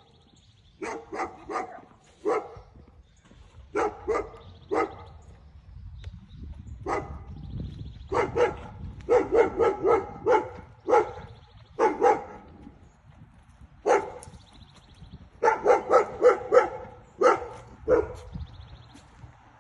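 A dog barking repeatedly in bursts of two to five barks, with short pauses between bursts; the barking is aimed at a passing dog being walked.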